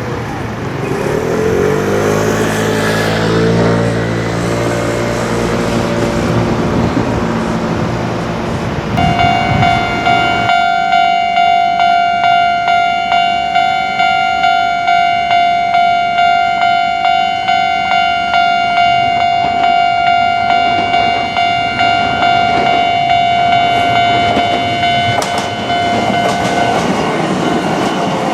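A Japanese level crossing's electronic warning bell starts about nine seconds in. It is a steady high ringing tone, pulsing about three times every two seconds, meaning a train is approaching. Before it, a passing vehicle's motor whines up and down in pitch, and near the end the bell stops as train noise builds.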